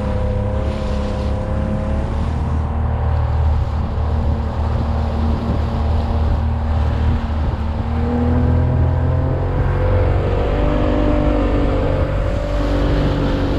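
Boat's outboard motor running steadily under way, its note shifting a couple of times, over a heavy low rumble of hull, water and wind.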